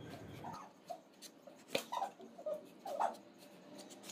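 Faint, short scraping strokes of a plastic Y-peeler's blade shaving the skin off a hard raw green mango, each stroke with a small squeak, with a sharp click near the end.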